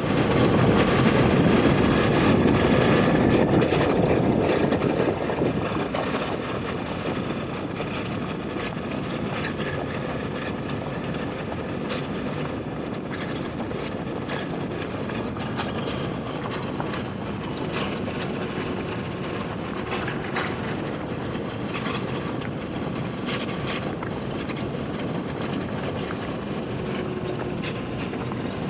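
Motorcycle on the move: a steady rush of engine and road noise, louder for the first five seconds or so and then even.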